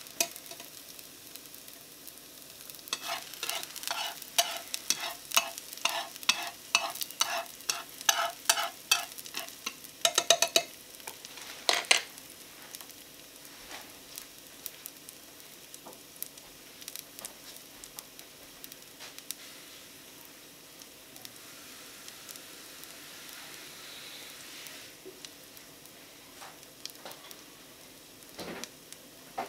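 Metal chopsticks tapping and scraping a nonstick frying pan in quick strokes, about three a second, as chopped shallot sizzles in the pan. About twelve seconds in the stirring stops with a sharp clack as the chopsticks are set down, leaving a faint steady sizzle.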